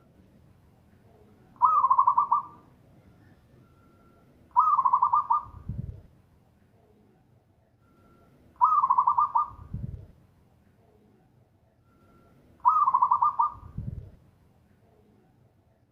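Zebra dove (perkutut) cooing: four rapid, trilled coo phrases about four seconds apart, each followed by a short low sound.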